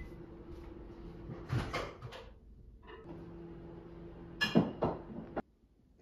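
Indoor household sounds: a steady low hum, with two short clusters of knocks and clatter, about a second and a half in and again near the end.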